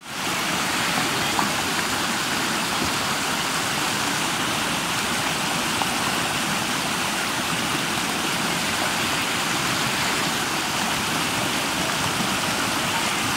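River water rushing over a submerged concrete causeway and pouring off its downstream edge: a loud, steady rush of water.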